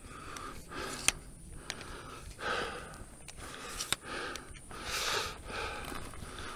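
A person breathing hard in noisy puffs about once a second, as after climbing in the heat, with a couple of sharp clicks in between.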